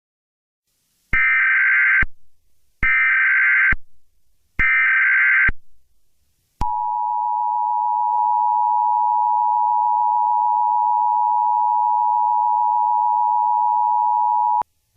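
Emergency Alert System SAME header: three bursts of data tones, about a second each and a second apart. Then the EAS two-tone attention signal, a steady 853 and 960 Hz dual tone held for about eight seconds before it cuts off. Together they open a new alert.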